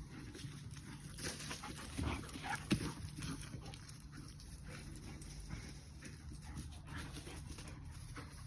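A lurcher dog moving about, making scattered short clicks and scuffles that are loudest two to three seconds in, over a steady low hum.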